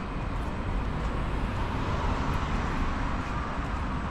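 Road traffic noise: a steady low rumble with a car going by on the street alongside, swelling a little about halfway through.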